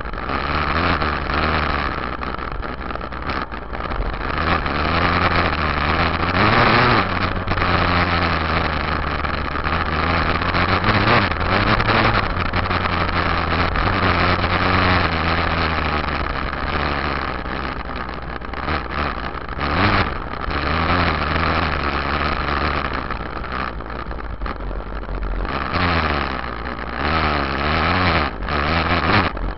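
Yamaha YZ dirt bike engine running under way, revving up and down with the throttle, heard close from the rear fender.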